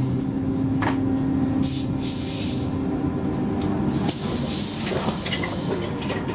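Interior of a Gothenburg M31 tram drawing into a stop: a steady hum from the running tram, with two bursts of compressed-air hiss about two and five seconds in, and a couple of sharp clicks.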